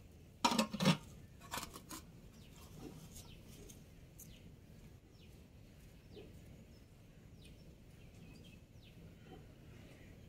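Metal cooking pot, lid and ladle clanking together in a quick cluster about half a second in, with a few lighter clinks just after. Birds chirp faintly through the rest.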